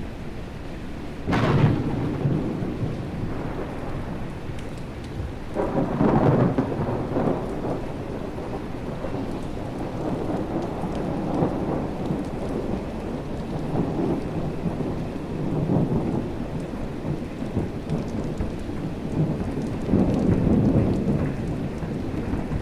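Thunderstorm: a sharp thunderclap about a second in, then rolling rumbles of thunder that swell several times, loudest around six seconds in and near the end, over steady rain.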